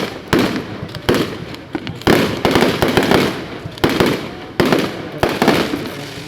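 Aerial fireworks going off in a series of sharp bangs, roughly one a second, with crackling between them.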